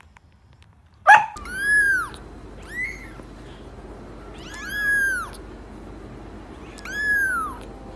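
Cat meowing four times, each meow rising then falling in pitch, after a short sharp sound about a second in.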